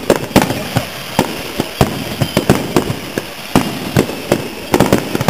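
Fireworks display: shells bursting in quick, irregular succession, several bangs a second, with crackling between them.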